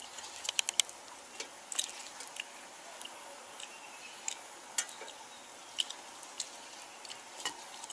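Spoon scooping thick batter into a small metal cake mold, giving scattered light clicks and taps against the mold and bowl, several close together in the first second, over a faint steady hiss.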